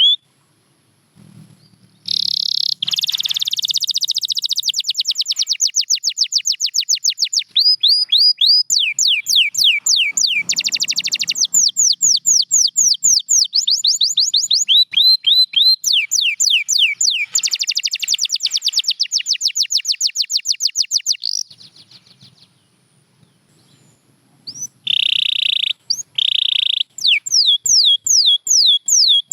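Domestic canary singing: long runs of fast, repeated, downward-sweeping whistled notes that switch from one phrase to the next, with rapid trills and two short, steady buzzy notes near the end. The song breaks off briefly at the start and for a couple of seconds about three-quarters of the way through.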